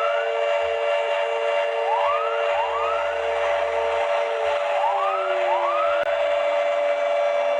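Emergency alert alarm made of layered electronic tones: a steady drone, a beep repeating about two or three times a second that stops a little past halfway, then a tone sliding slowly down in pitch, with pairs of short rising whoops over it every few seconds.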